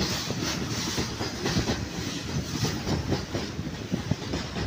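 Freight train of covered hopper wagons rolling past: steel wheels rumbling and clattering over the rail joints in a steady run of knocks.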